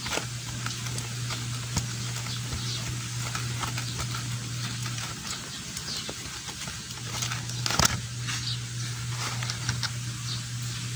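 Small clicks and scrapes of the engine's oil drain plug being turned out by hand. About eight seconds in there is one sharp click, then used oil starts running into a plastic basin with a faint patter. A steady low hum sits underneath and drops out for a moment in the middle.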